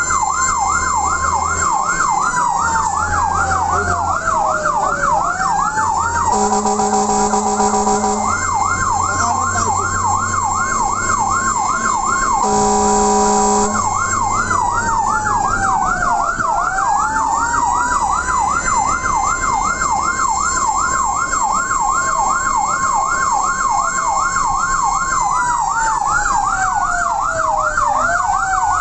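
Fire truck's electronic siren sounding a rapid yelp over a slower wail that rises, holds and falls. Twice, about six and twelve seconds in, the yelp breaks off for a long steady horn blast.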